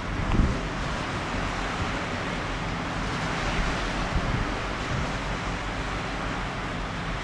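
Wind buffeting the microphone over a steady rush of river water, with a stronger gust about half a second in.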